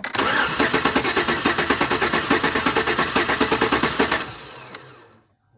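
Truck engine cranking over on the starter for a compression test, in an even rapid chug for about four seconds, then winding down. The cylinder under test reads about 167–168, low against about 180 on the other bank, pointing to low compression behind the misfire.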